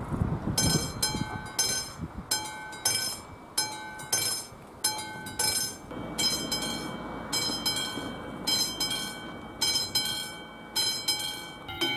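Railway level crossing warning bell ringing, a steady repeating ding of about two and a half strokes a second, over a low rumble in the first two seconds.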